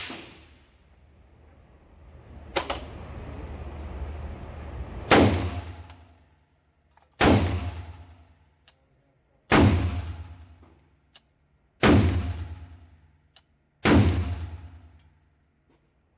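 Five shots from a 10.5-inch-barrel AR-15 firing .223/5.56, each a sharp crack that rings off briefly, fired steadily about two seconds apart, starting about five seconds in. A quieter sharp crack comes about two and a half seconds in.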